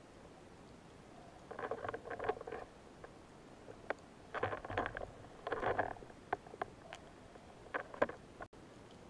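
Underwater crackling and sharp clicks in short clusters, about five bursts with single clicks in between, from the speargun, its line and the speared fish being handled close to the camera.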